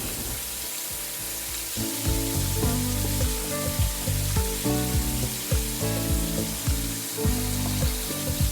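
Flour-coated chicken pieces frying in hot peanut and vegetable oil in a pan, with a steady sizzle. Low background music with a steady beat comes in about two seconds in.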